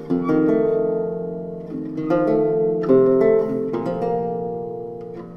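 Solo baroque lute playing: plucked chords and bass notes struck a handful of times, each left to ring and fade before the next.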